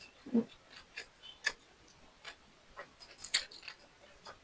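A person chewing a mouthful of egg fried rice close to the microphone: scattered wet mouth clicks and smacks, denser near the end.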